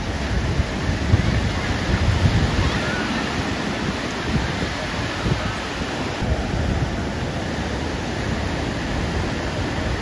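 Surf breaking and washing up the beach, with wind buffeting the microphone as a steady low rumble.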